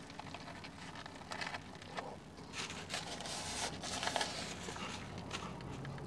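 Faint crinkling and rustling of a foil sandwich wrapper and a paper napkin, with quiet chewing, in short irregular bursts that are busiest in the middle.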